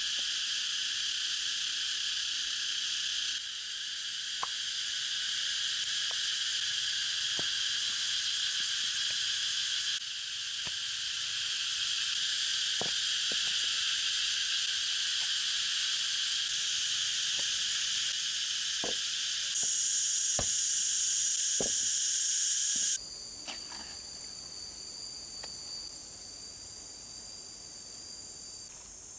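Dense chorus of insects buzzing and trilling, with a few sharp clicks of stones knocking together as rocks are handled. The chorus steps up and down abruptly a few times, and about three quarters of the way in it drops away to a thinner, high, steady insect whine.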